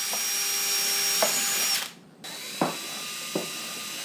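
Electric power tool running with a steady whine, switching off a little under two seconds in and starting up again a moment later, with a few light knocks of the work along the way.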